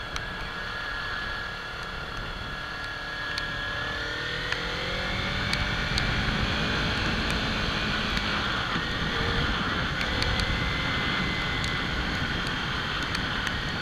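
Kawasaki Ninja 300's parallel-twin engine running under way, with wind noise on the microphone. About four seconds in the engine pitch rises, then holds steady while the wind noise grows a little louder.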